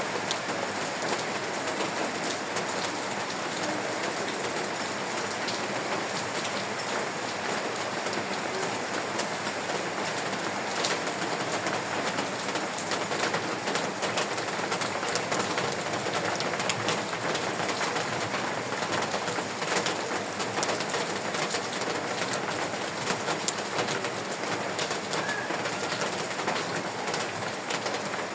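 Steady rain falling, a dense even hiss with many single drops ticking sharply through it.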